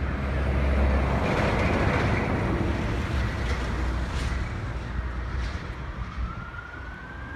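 Fire station roller shutter door closing with a steady low motor hum, under wind noise on the microphone. Near the end a fire engine's siren wails faintly, rising in pitch.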